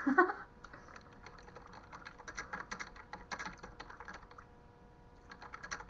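Typing on a computer keyboard: irregular runs of quick key clicks, pausing now and then.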